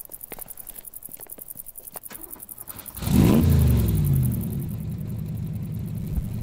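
Faint scattered clicking, then about three seconds in a loud engine rev starts suddenly and falls in pitch over about a second, settling into a low, steady running note.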